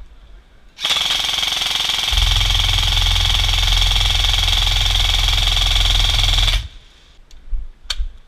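Airsoft electric gun firing one long full-auto burst, a rapid buzzing rattle lasting about six seconds. A heavy low rumble joins about two seconds into the burst.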